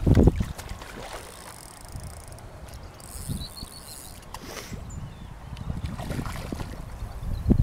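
Wind buffeting the microphone, with rustling and scattered knocks from handling outdoors; a louder burst of knocks in the first half-second.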